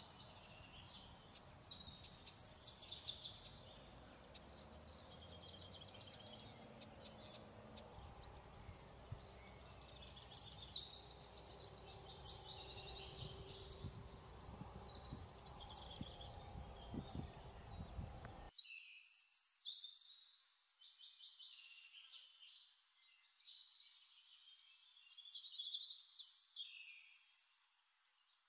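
Faint small birds chirping and singing in quick trills, over low background noise that cuts off abruptly about two-thirds of the way through.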